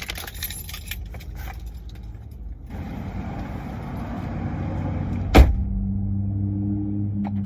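Keys jangling briefly at the start, then a rush of noise building up, one sharp loud thump about five seconds in, and a steady low hum after it.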